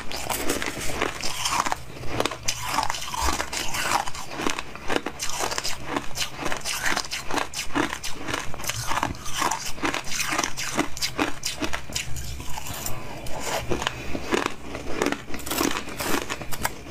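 Close-up crunching and biting of frozen milk ice: a steady run of crisp, crackling crunches, a couple or more a second, with a metal spoon scooping through the icy milk.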